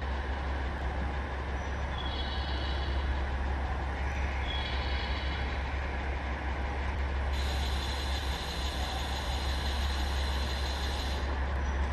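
521 series electric multiple unit standing at the platform, its onboard equipment giving a steady low hum. A high-pitched whine comes and goes twice in the first half, then a higher, stronger whine sets in about seven seconds in and stops abruptly about four seconds later.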